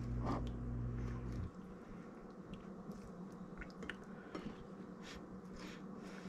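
Raw shrimp being handled and dropped into a wooden mortar of shredded papaya: soft wet squishes and small scattered clicks. A low steady hum cuts off suddenly about a second and a half in.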